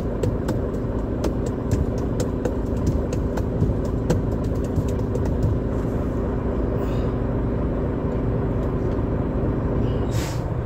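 Semi-truck's diesel engine running with a steady low rumble, heard inside the cab. Sharp ticks and rattles come and go through the first half, and a short hiss comes about ten seconds in.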